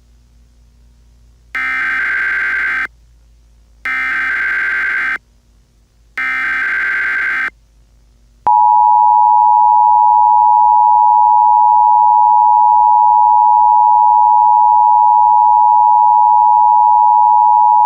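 Emergency Alert System activation: the SAME header sounds as three short bursts of digital data tones, each just over a second long with about a second between them. The steady two-tone EAS attention signal then starts about eight and a half seconds in and holds.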